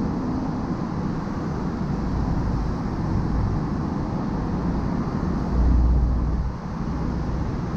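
Steady road noise from a car driving along a highway: low tyre and wind rumble, swelling louder for about a second about two-thirds of the way through.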